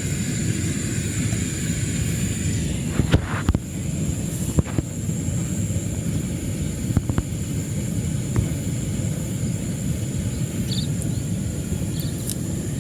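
Steady low rumbling outdoor noise with a thin, high, steady whine above it and a few sharp clicks, clustered around three to five seconds in and again near seven and eight seconds.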